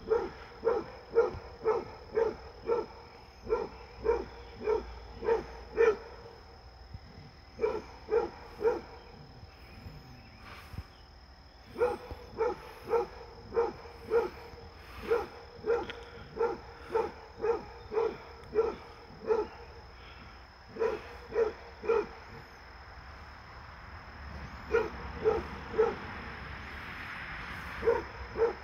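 Basset hound barking repeatedly in runs of about two barks a second, with short pauses between runs.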